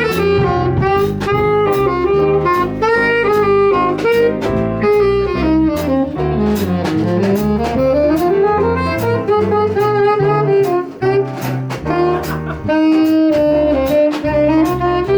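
Jazz ensemble playing, a saxophone carrying the melody over a stepping bass line and regular cymbal strokes; in the middle the saxophone line runs down and climbs back up.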